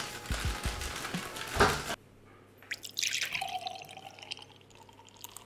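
Plastic bag of dry brownie mix rustling and being shaken into a mixing bowl with a few dull thumps; then, after a cut, liquid poured from a glass bottle into the bowl, with a short rush, gurgles and drips.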